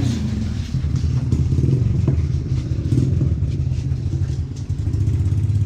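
A small engine running steadily, with a sharp click about two seconds in.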